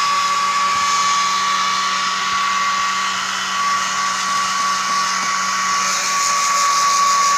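Hair dryer running steadily to dry a freshly bathed cat's wet fur: a constant rushing of air with a steady high whine.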